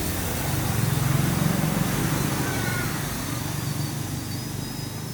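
An engine running steadily with a low rumble, swelling a little about a second in and then easing off.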